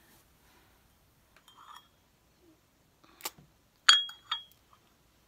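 Porcelain teacup clinking against its saucer: a faint tap, a dull knock, then two sharp clinks with a brief high ring about four seconds in.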